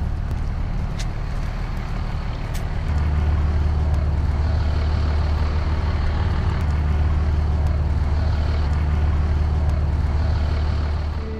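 Street ambience: a steady low rumble of road traffic under an even hiss of city noise, rising a little about three seconds in.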